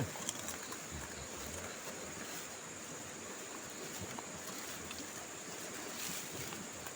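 Steady riverside ambience: an even rushing noise with insects droning at a constant high pitch over it.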